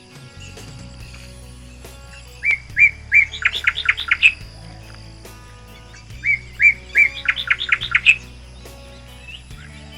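A songbird singing two similar phrases a few seconds apart, each a few short notes followed by a quick run of rising notes.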